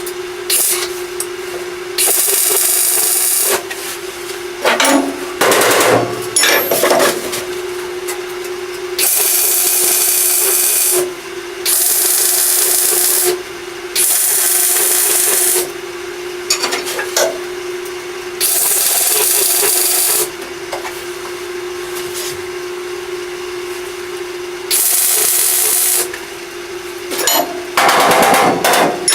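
Welding a sheet-metal wheel well panel into a car body in a series of short welds: about six loud hissing bursts of one and a half to two seconds each, the tack-and-skip welds on a lapped seam. Between them come a couple of short clusters of knocks, over a steady hum.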